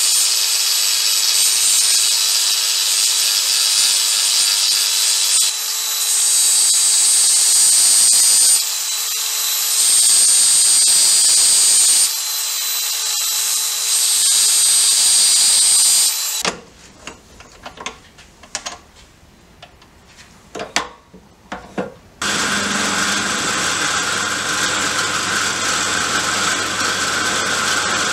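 Electric angle grinder with an abrasive disc cutting into a steel bar, the motor whining steadily and the cut growing louder in three stretches as the disc is pressed into the metal. It then stops, leaving a few light knocks, and a drill press starts up and runs steadily, drilling into steel plate.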